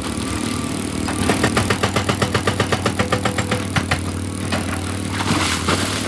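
Excavator engine running steadily, with a rapid run of percussive hammering against rock, about nine blows a second, from about a second in until about four seconds in.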